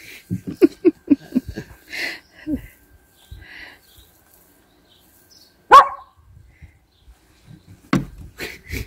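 A dog barking in short bursts: a quick run of short barks at the start, then one loud bark about halfway through.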